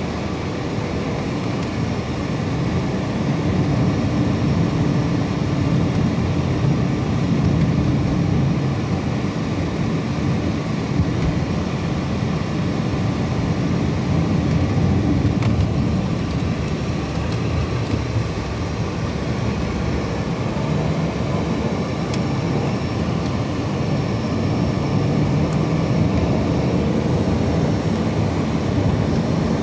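A car driving along an asphalt road, heard from inside the cabin: a steady low rumble of tyres and engine.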